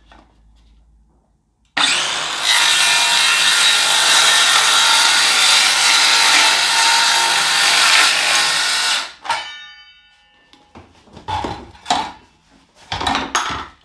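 A compact handheld circular saw starts about two seconds in and cuts through a polymer (polystyrene/polyurethane) skirting board for about seven seconds, then is switched off and winds down. A few short, rough scraping sounds follow near the end.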